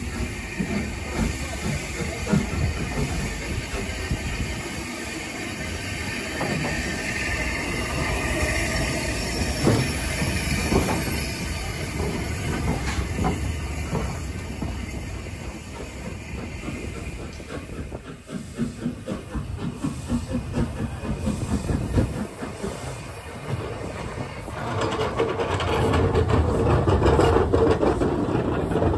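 Steam train in motion: hissing steam over the clanks and beats of the locomotive and its carriages on the rails. The sound swells and gets louder near the end.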